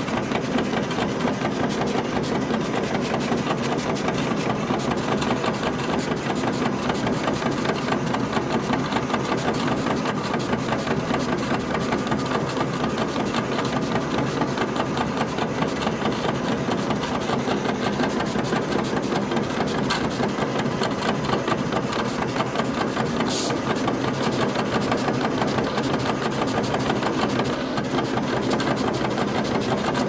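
Vinyl cutting plotter running as its blade head moves across the sheet, its drive motors giving a steady, rapidly pulsing mechanical buzz. Two brief clicks come about two-thirds of the way through.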